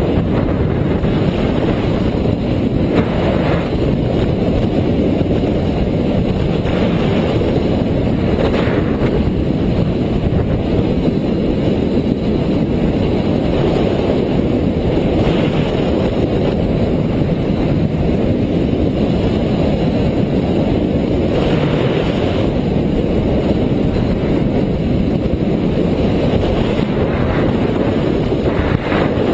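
Loud, steady wind rushing over the microphone of a head-worn camera on a moving motorcycle, with the bike's running and road noise underneath and a few brief gusts.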